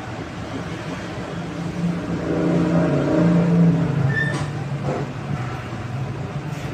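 Low mechanical hum with a few steady tones, growing louder about two seconds in and easing off after about four seconds, like a motor vehicle passing.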